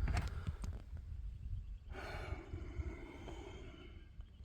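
A few light clicks and rattles of handling parts, then a person sighing, a breathy sound that lasts about a second and a half.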